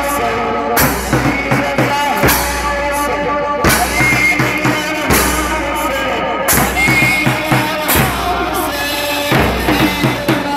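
A crowd of Shia mourners chanting a nauha lament with a heavy, even beat about every one and a half seconds, the rhythm of matam chest-beating.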